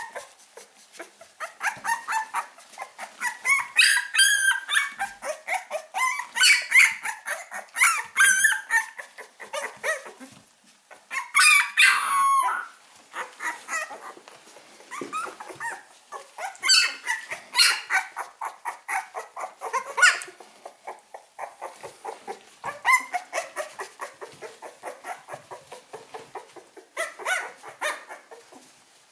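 Eleven-day-old Hovawart puppies squeaking and whimpering in short high calls as the litter jostles to nurse from their mother. The calls come in quick succession, loudest in flurries about 4, 8 and 12 seconds in.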